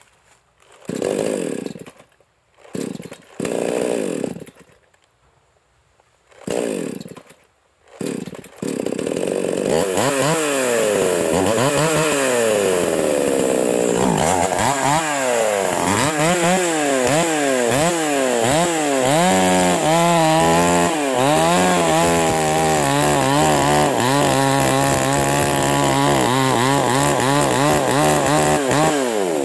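Two-stroke petrol chainsaw being pull-started: a few short bursts with silence between, then the engine catches about eight seconds in and runs. It is then revved up and down repeatedly, about once a second, and near the end it is cutting into a teak trunk.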